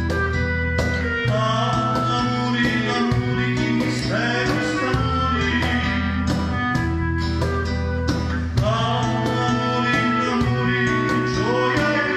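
Live acoustic ensemble playing a Sicilian song: a man singing into a microphone in wavering phrases over a bowed cello, a wind instrument, sustained low notes and a steady percussion beat.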